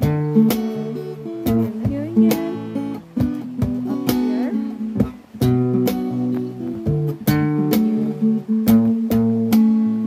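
Background music: an acoustic guitar instrumental, with a series of plucked notes and chords over sustained bass notes.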